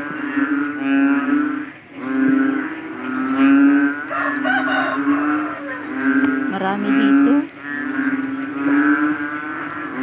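Frog calling loudly after rain: long, low droning calls, each held for a second or two with only brief breaks between them, the pitch steady and rich in overtones.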